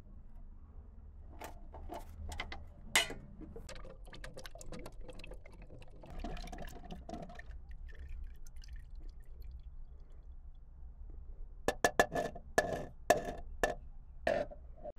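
Scattered light clicks and knocks of hand work over a low, steady hum, ending in a quick run of sharp, slightly ringing taps.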